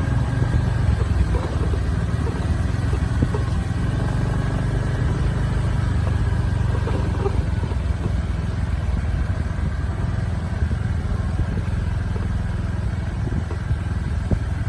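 Vehicle engine running steadily at low, even revs, with a few light knocks from travel over a rutted dirt track.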